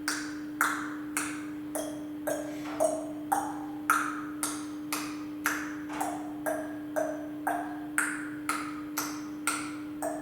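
Tongue clicks in the 'little horse' vocal warm-up, about two a second, clopping like hooves. Their hollow pitch shifts between higher and lower as the mouth changes from a smile to lips rounded into a tube. A steady low hum runs underneath.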